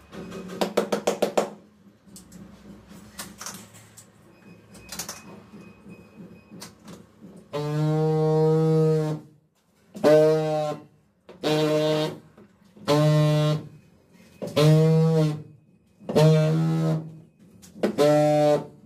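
Handheld tile vibrator pressed against a large 120 × 60 cm matt ceramic tile to bed it into the adhesive, buzzing in seven short bursts of about a second each, each rising in pitch as it starts and dropping away as it stops. Near the start, a quick run of sharp knocks.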